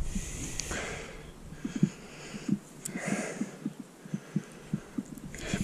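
Footsteps of a person walking on wet grass and mud, heard as a quick run of soft thuds, with wind gusting across the microphone in the first second.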